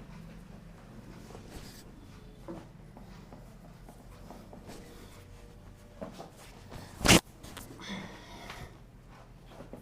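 Rustling and handling sounds of a chiropractic back adjustment, with one short, loud crack-like burst about seven seconds in, the moment of the thrust.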